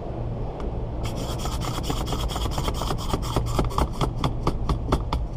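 Windshield cut-out wire being drawn through the urethane adhesive around the glass, rasping in quick regular strokes, about five a second, starting about a second in and slowing slightly near the end.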